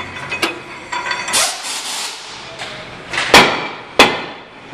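Light clinks of metal parts, then two sharp, loud metal-on-metal strikes about half a second apart a little over three seconds in, each ringing briefly.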